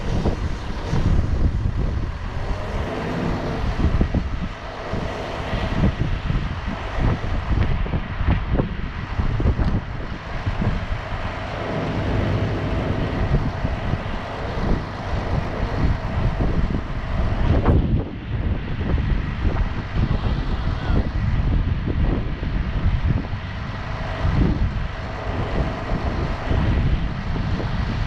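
Rollback tow truck's diesel engine idling steadily, with gusts of wind buffeting the microphone.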